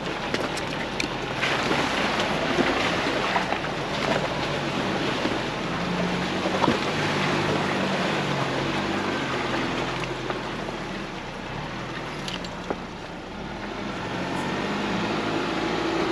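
Ford Bronco's engine running at low crawling speed, its note rising and falling, over a steady rumble of tyres rolling on a muddy, leaf-littered trail. Scattered sharp clicks and knocks come from sticks and ground under the wheels.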